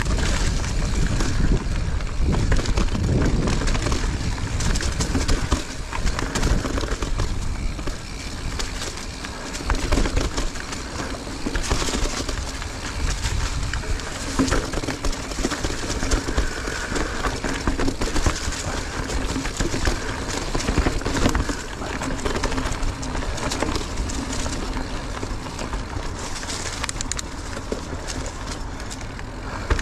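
Mountain bike riding on a dirt trail: a steady rumble of wind and tyres on the ground, with frequent clicks and rattling knocks from the bike over rough ground.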